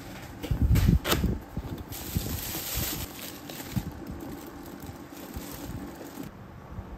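Handling noises from unboxing a coffee grinder: a few dull thumps about a second in, then light rustling and small clicks of cardboard and plastic packaging.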